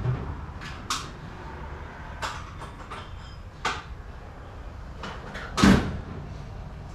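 Steel knocking and clanking as tools work on a Hummer H3's front suspension to free the upper control arm. There are about five separate knocks at uneven intervals, the loudest near the end.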